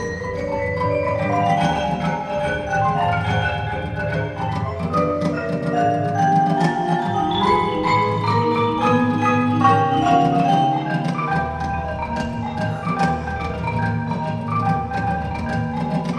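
Percussion ensemble music led by marimbas: fast, busy melodic patterns of struck wooden-bar notes over low, held bass tones that shift pitch every few seconds.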